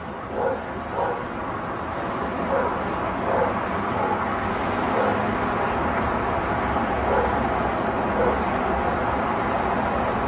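Dogs barking, short single barks a second or so apart, fainter and more scattered after the first couple of seconds, over a steady low rumble of city traffic that grows louder about two seconds in.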